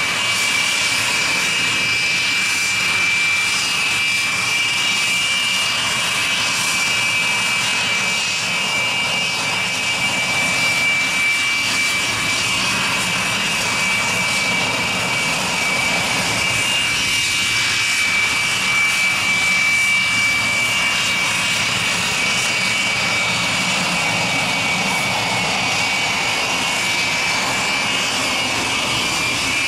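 Aermacchi MB-339 jet trainers taxiing past one after another, their single Rolls-Royce Viper turbojets running at low power. The sound is a steady, high-pitched whine over an even jet rush.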